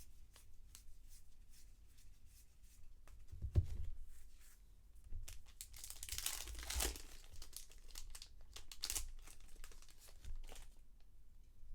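2020 Bowman 1st Edition card packs being torn open and their foil wrappers crinkled, with small clicks of cards being handled. There is a dull thump about three and a half seconds in, and the loudest tearing crinkle comes around six to seven seconds in.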